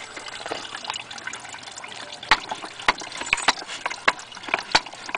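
Crab apple juice trickling and dripping out of a homemade wooden cider press, with irregular sharp ticks that come more often from about two seconds in.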